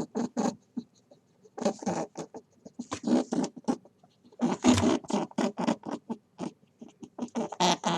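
An animal making rapid series of short, sharp calls, several a second, in bouts separated by brief pauses.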